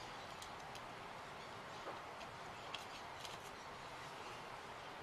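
A few faint, irregular light clicks as small laser-cut 3 mm MDF pieces are pressed out of their sheet with a small screwdriver, over a steady low hiss.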